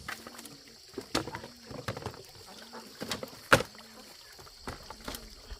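Irregular sharp knocks and clatters, about eight in all, the loudest about three and a half seconds in, over a steady high insect drone.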